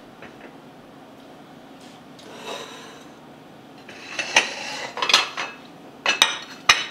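China plates being handled and slid across a countertop, with scraping and rubbing, then two sharp clinks near the end.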